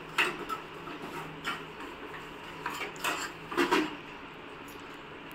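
Metal kitchen utensils clinking and knocking against a cooking pot, a few separate strikes spread out.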